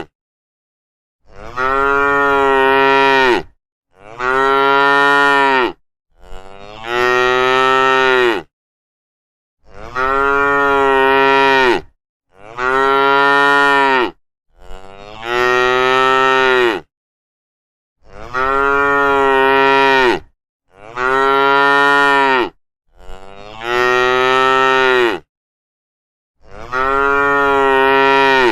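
Cows mooing: about ten long moos of about two seconds each, one after another, with short gaps of complete silence between them.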